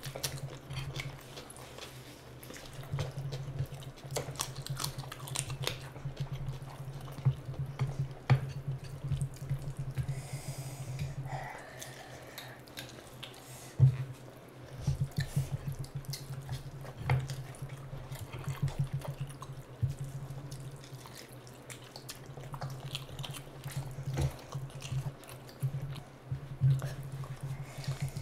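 Close-miked wet eating sounds: fingers squishing and mixing rice with curry, lip smacks and chewing, as a string of small wet clicks and smacks. A steady low hum runs underneath.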